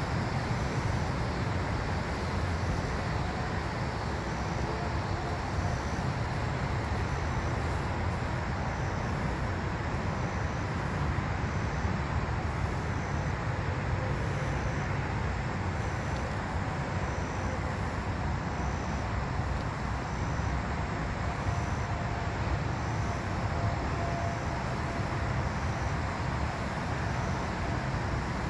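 Steady rush-hour road traffic noise, a constant low rumble, with faint cicadas calling in short high pulses about once a second.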